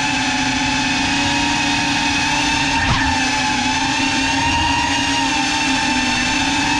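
GEPRC CineLog35 ducted cinewhoop FPV drone's motors and propellers whining at a steady pitch in flight, with a brief dip and rise in pitch about three seconds in as the throttle changes.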